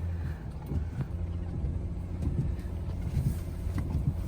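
Mercedes Sprinter van driving up a steep snowy hill: a low engine and road rumble with irregular knocks and bumps.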